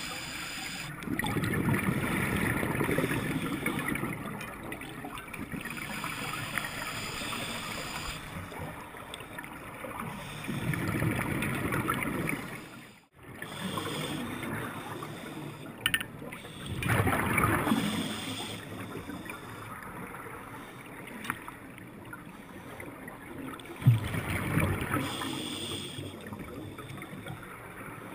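Scuba divers' exhaled bubbles rushing out of a regulator underwater, in a burst about every six or seven seconds over a steady gurgling water hiss, with a single sharp click near the end.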